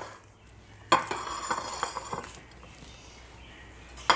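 A ceramic plate clinks down onto another plate about a second in, ringing briefly, followed by a soft rustle of paper towels; another sharp clink comes near the end.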